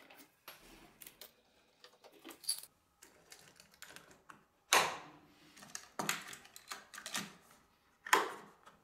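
Hand-handling clatter of workshop hardware: metal bar clamps being released and removed, and hinged wooden stocks swung up and fastened with small metal toggle latches. It comes as a series of sharp clacks and clicks, the loudest about halfway through and near the end.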